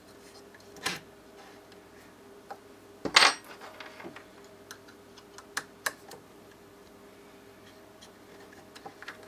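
Handling noise of laser-cut panels being pressed and fitted together: scattered clicks and knocks, with a loud clack about three seconds in and two sharp clicks near six seconds, over a faint steady hum.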